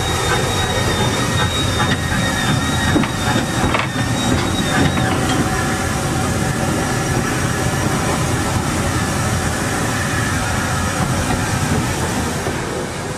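Steam locomotive running along the line, heard from its cab: a steady loud rumble and rattle of engine and wheels. A faint high steady tone stops about five seconds in.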